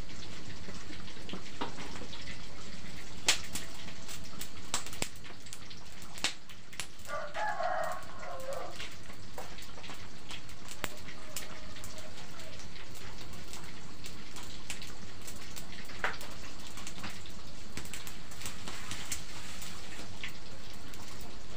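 A rooster crows once about seven seconds in, over a steady hiss with scattered sharp crackles.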